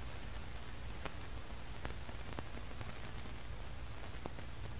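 Steady hiss with a few faint, scattered ticks.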